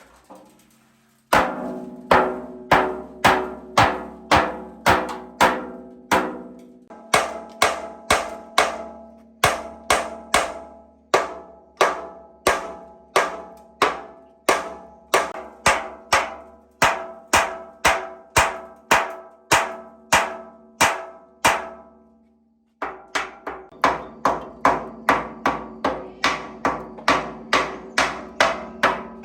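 Steady hammering on a metal part, about two blows a second, each blow ringing at the same pitches. After a short pause near the end, the blows resume slightly quicker and lighter.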